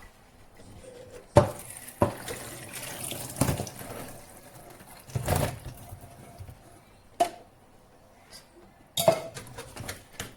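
Hot water being drained from a pot of boiled eggs into a kitchen sink, with the metal pot knocking against the sink several times.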